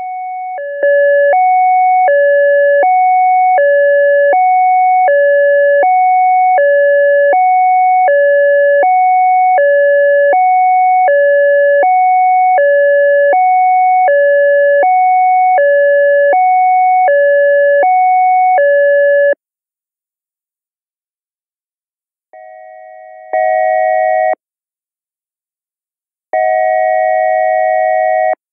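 ASC digital electronic siren controller synth, dry with no reverb, sounding its Hi/Lo signal: two steady electronic tones alternating high and low, each held for under a second. After about 19 s it stops, and after a short pause the Air-horn signal follows: two sustained chord blasts of about two seconds each, the first starting quieter and jumping louder.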